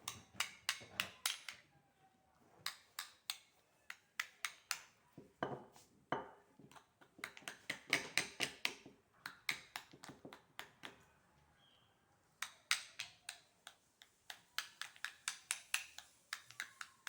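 A spoon clicking and tapping against a bowl while a thick paste is stirred and mashed. It comes in quick runs of several clicks a second, broken by short pauses.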